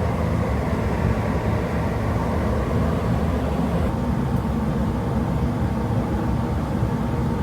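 Fume extractor (smoke hog) blower running with a steady low drone and a few faint steady tones above it.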